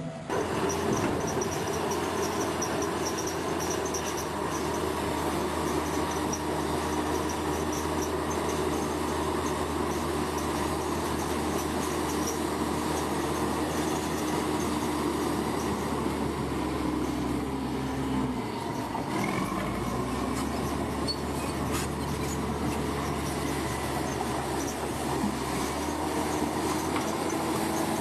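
Komatsu bulldozer's diesel engine running steadily under load, with a high metallic squeal from the running gear. The engine note drops briefly about two-thirds of the way through, then picks up again at a slightly different pitch.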